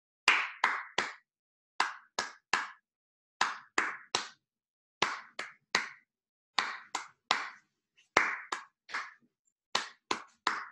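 A person clapping hands in sets of three quick claps, about seven sets, with a short pause after each set. The third clap of each set is the cue to read a word aloud.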